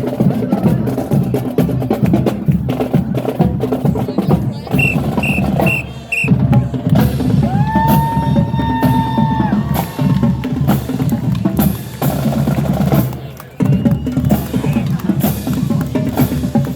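Marching band percussion playing a rhythmic drum cadence: snare and bass drums with wood-block-like clicks. Four short high pips come about 5 s in, and a held tone sounds over the drums around the middle.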